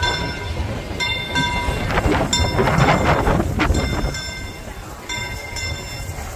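Steam locomotive bell on the Disneyland Railroad's Fred Gurley ringing repeatedly as the train arrives at the station, with a loud rushing noise for about two seconds in the middle.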